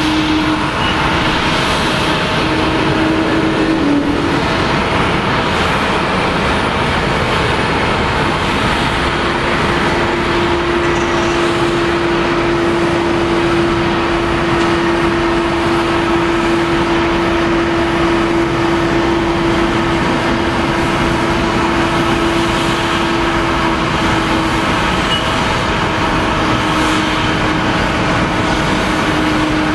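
Jet engines of a Boeing 737-800 running as the airliner rolls along the runway: a steady, loud rushing noise with a steady droning tone through most of it.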